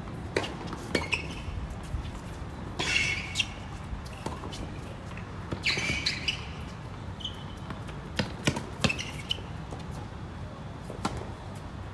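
Tennis ball struck by rackets and bouncing on a hard court: a series of sharp pops at uneven intervals, with two brief noisy bursts between them, about three and six seconds in.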